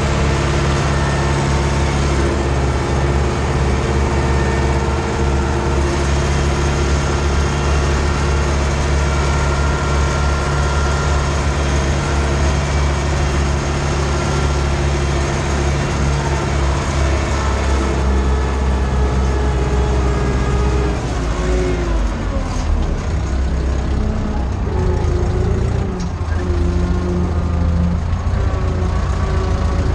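Ursus C-360 tractor's diesel engine running steadily under load while pulling a field cultivator, heard from inside the cab. About two-thirds of the way through, the engine note drops and then wavers.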